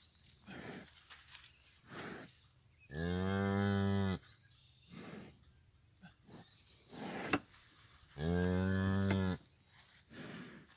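Black Angus-Simmental cross beef cow mooing twice, low and steady, each moo lasting about a second, five seconds apart, as she tends her newborn calf.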